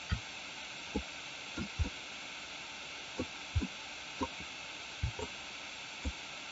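About ten soft, dull thumps at irregular intervals, typical of mouse clicks and key presses picked up through the desk by the microphone, over a steady microphone hiss.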